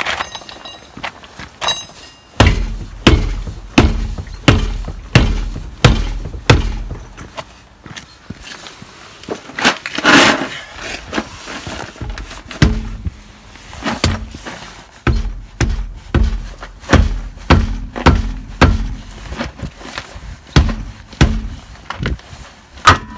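Hammer blows on a car's rear alloy wheel and tyre, knocking the wheel loose from the hub: dull thuds about two a second, in runs with a pause near the middle.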